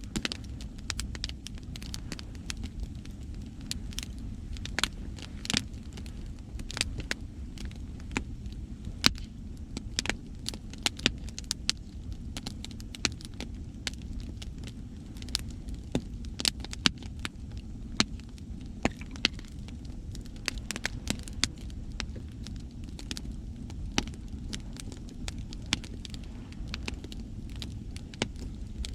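Wood fire crackling, with many sharp, irregular pops and snaps, over a steady low rumble of sea waves.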